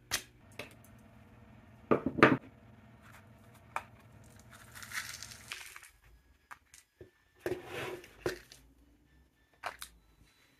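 Sharp clicks and knocks of steel pliers and a brass .22LR case handled on a wooden workbench, loudest about two seconds in. Then small metal shot rattles and scrapes in a clear plastic tub as it is scooped, twice.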